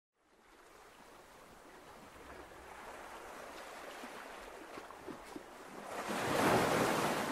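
Ocean surf washing onto a beach, fading in from silence. The rushing builds slowly, and a wave swells and breaks loudest near the end.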